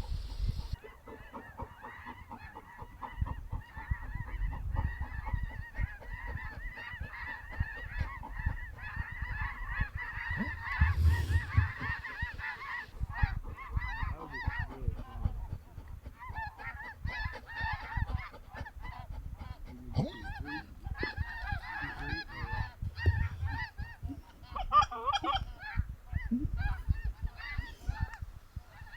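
A large flock of snow geese calling, many honks overlapping into a constant clamour that thins briefly near the middle and then builds again.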